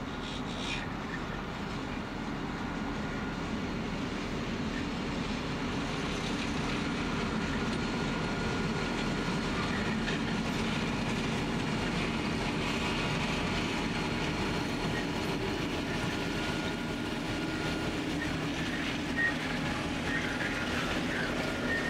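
Three diesel freight locomotives hauling a grain train, their engines running steadily and growing louder as they draw near and pass. A few sharp wheel clicks come near the end.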